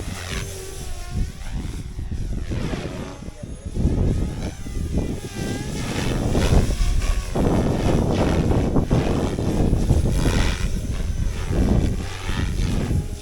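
Electric RC helicopter's motor and rotor whine sliding up and down in pitch as it flies and manoeuvres, over heavy gusts of wind rumbling on the microphone.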